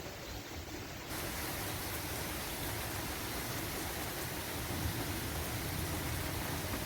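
Thunderstorm rain falling steadily, an even hiss that gets louder and brighter about a second in as the rain picks up.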